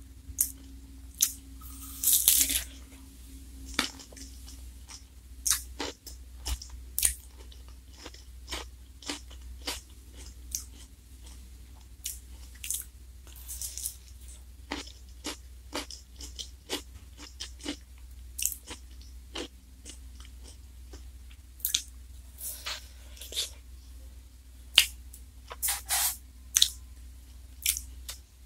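Close-up eating sounds of a black wafer ice cream cone with ice cream: crisp crunching bites and wet chewing. Irregular sharp crunches and mouth clicks come every second or so, a few of them louder.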